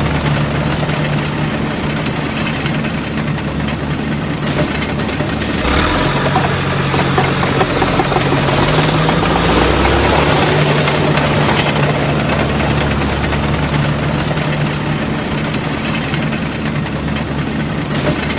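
A small motor running steadily with a low hum, its pitch shifting about six seconds in.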